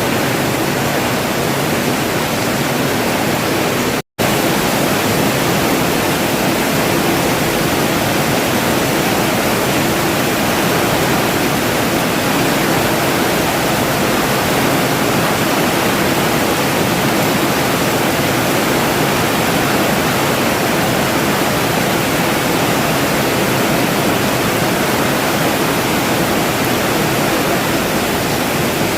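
Steady rain falling, an even hiss with no separate drops standing out. It cuts out to silence for a moment about four seconds in.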